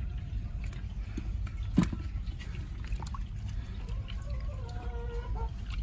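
Shallow water splashing and sloshing as a hand grabs at a fish, with scattered drips and one sharp splash or knock a little under two seconds in, over a steady low rush of flowing water. A faint pitched call sounds in the background near the end.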